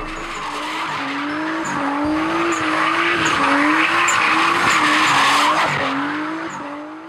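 Turbocharged 2.5-litre Nissan Skyline engine in a drifting Datsun, its note rising and falling again and again as the throttle is worked. The rear tyres screech and skid under it. The sound builds, then fades away near the end.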